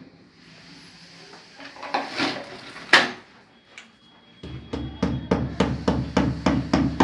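A hammer tapping plastic wall plugs into holes drilled in a ceramic-tiled wall. There are a few scattered knocks, one sharp one about three seconds in, then a quick, even run of taps, about five a second, through the last two and a half seconds.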